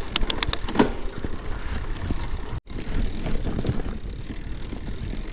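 Rigid mountain bike ridden over rough ground: a steady rumble of tyres and wind on the action camera, with a quick run of sharp clicks right at the start. The sound cuts out for an instant about halfway.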